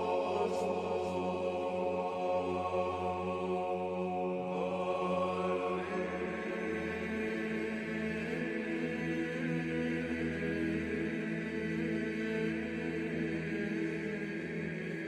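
Background music of slow, drawn-out vocal chant in the style of Byzantine church chant, sung over a steady held drone; the sung notes shift about six seconds in.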